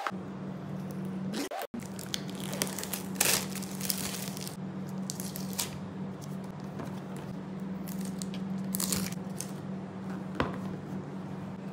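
Rustling, crinkling and tearing as the seal stickers and wrapping are peeled off a cardboard smartphone box, with a few scrapes as the box lid is slid off near the end. A steady low hum runs underneath.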